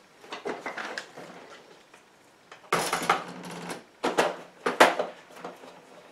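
Glass jars and a glass measuring cup being handled on a tabletop: irregular clinks and knocks, a scraping rustle about three seconds in, then two sharp clinks about a second apart.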